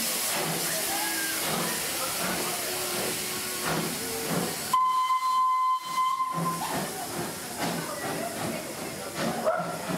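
Small steam tank locomotive hissing steam from its open cylinder drain cocks, then one steam whistle blast of nearly two seconds about five seconds in, as the engine sets off.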